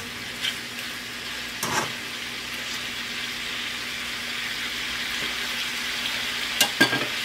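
Chicken and vegetables sizzling steadily in a wok of hot oil, stirred with a metal spatula. A few short knocks and scrapes of the spatula against the wok come near the start and in a cluster near the end.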